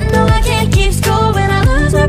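Background music: an upbeat pop track with a steady beat, deep sliding bass notes and a melodic line.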